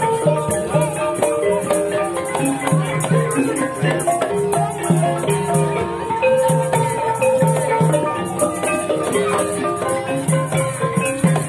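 Live Javanese gamelan ensemble playing: pitched keyed percussion rings out a running melody over a regular pattern of kendang drum strokes.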